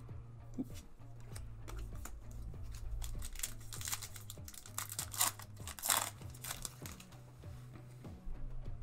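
Booster pack wrapper being crinkled and torn open, the rustling loudest about halfway through, over background music with a steady bass line.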